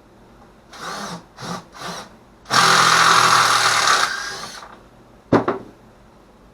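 Power drill run in three short bursts, each rising in pitch as the motor spins up, then held for a loud run of about two seconds that winds down. A single sharp clack follows about a second later.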